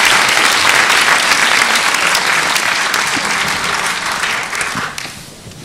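Large audience applauding, thinning out and dying away about five seconds in.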